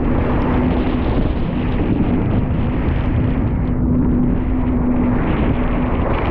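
Personal watercraft (jet ski) engine running steadily at speed through choppy water, its steady drone mixed with wind rushing over the microphone and spray splashing over the hull and windshield.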